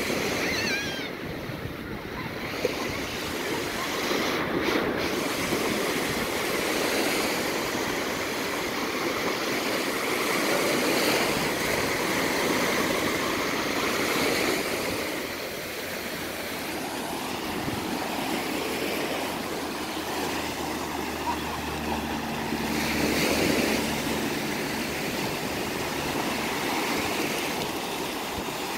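Small sea waves breaking and washing up on a sandy shore, a steady rush that swells and fades every few seconds.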